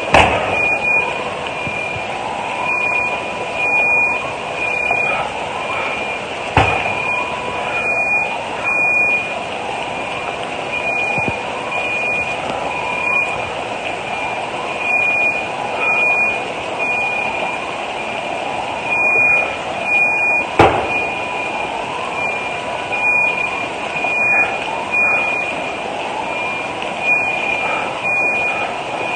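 Electronic alarms sounding together: a rising whoop that repeats about every second and a half, over a high, steady beeping tone that pulses on and off. A few sharp bangs cut through: one at the start, one about six and a half seconds in and one about twenty seconds in.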